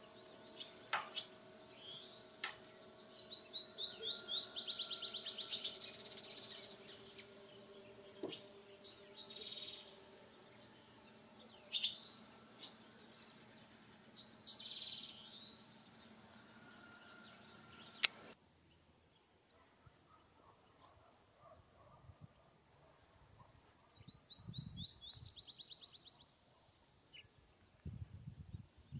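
Birds singing and chirping, including a fast trill of rapid notes heard twice, over a faint background hum. A single sharp click about two-thirds of the way through.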